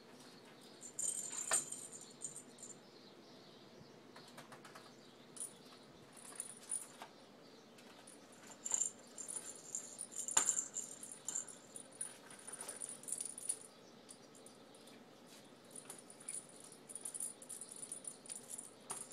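Small bells jingling inside plastic lattice jingle balls as a green-cheeked conure pushes and tosses them about the cage floor, in irregular bursts of jingling and clicks, busiest around the middle.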